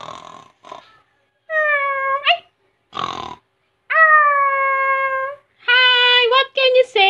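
A small dog whining and howling in drawn-out calls: a short one, then a longer steady one, then several quicker ones that bend upward at the end. A short noisy huff comes between them.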